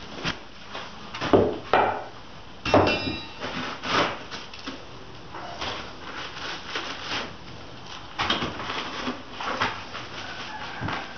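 Irregular wooden knocks, cracks and clatter of rotten mobile-home subflooring being pulled up and broken apart, with a brief squeak about three seconds in.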